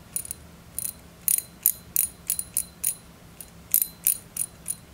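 Drag clicker of a Bullzen Berserk Immortal SW3500 saltwater spinning reel clicking as the spool turns against the drag: a run of sharp clicks, a few a second and unevenly spaced, with a brief pause a little past the middle.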